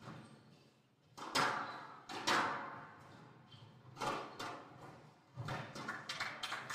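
A squash ball being struck by rackets and smacking off the court walls during a rally, each hit a sharp crack that echoes around the hall. Three loud cracks come about a second apart, then a quicker patter of smaller knocks near the end.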